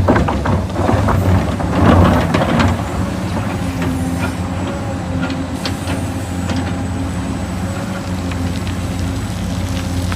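A heavy engine running steadily with a low hum, with several knocks and clanks over the first few seconds.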